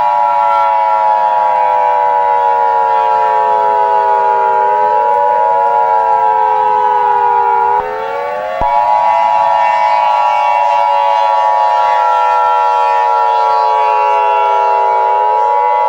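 Emergency alert siren tones: a steady high tone held under several siren tones that slowly fall in pitch and then sweep quickly back up, repeating about every 7 to 8 seconds. The steady tone cuts out briefly about halfway through.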